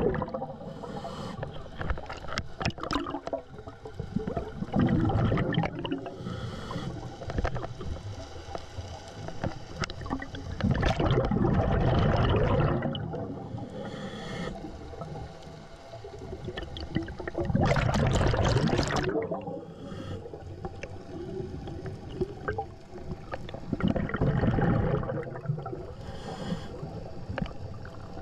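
Scuba regulator breathing underwater: a rumbling, gurgling rush of exhaled bubbles about every six seconds, with a fainter hiss of inhaled air between them.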